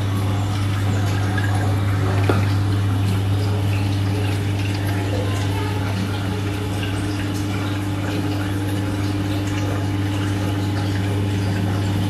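Aquarium water pump running with a steady low hum over the constant sound of running, splashing water.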